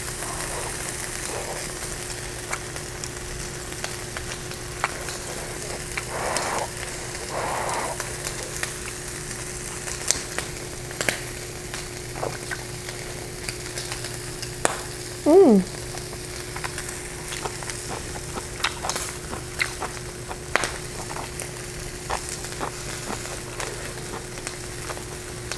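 Pork pieces sizzling steadily on an electric tabletop grill over a steady hum, with close eating sounds: many small clicks of chopsticks and chewing. About midway comes one brief falling vocal sound.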